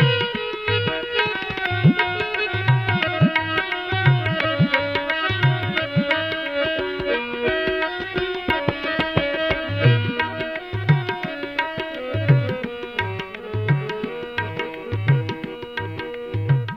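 Instrumental interlude of a Sikh shabad kirtan: a melody of held notes stepping up and down, played over tabla, with the bass drum's low strokes about once a second.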